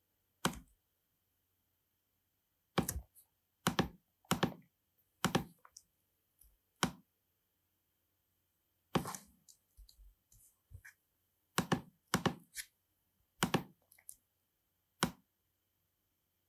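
About a dozen sharp clicks from working a laptop's controls, coming singly and in pairs at irregular intervals a second or two apart.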